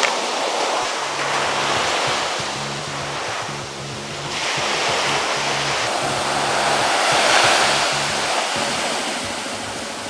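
Ocean surf washing onto a beach, swelling and easing in waves, with background music and a low bass line underneath from about a second in.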